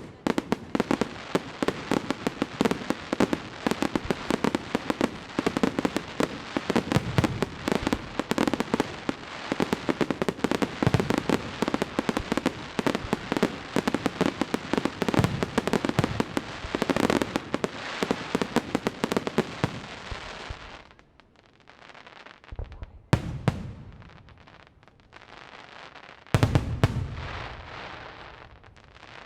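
Aerial fireworks display: a dense, rapid barrage of bangs and crackling for about twenty seconds, then it thins out to a few separate booms with rumbling echoes near the end.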